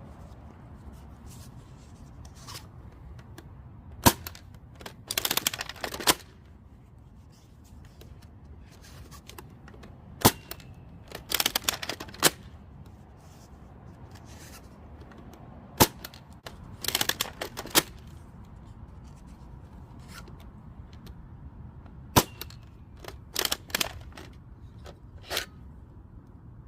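Nerf Sledgefire spring-powered blaster firing Mega darts from a cartridge shell: four sharp shots about six seconds apart. Each shot is followed about a second later by a stretch of clattering handling noise.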